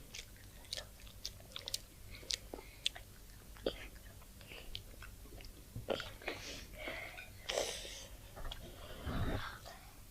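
Close-up chewing and biting of food, with many short crisp mouth clicks and crunches. The sounds grow busier in the second half, with a low thump about nine seconds in.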